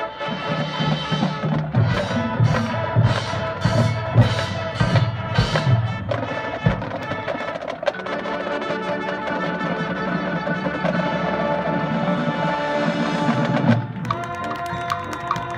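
High school marching band playing: brass and woodwinds holding chords over the drums, with a run of heavy drum hits about two a second in the first few seconds. Near the end the full band cuts off, leaving thinner sustained tones.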